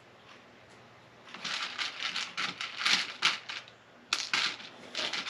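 Loose Lego Technic plastic pieces clattering in a plastic dish as a hand rummages through them: a dense run of small clicks and rattles starting about a second in and lasting about two seconds, then a few more short rattles near the end.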